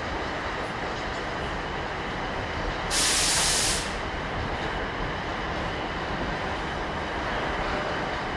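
Train rumbling steadily at the station, with one loud hiss of under a second about three seconds in.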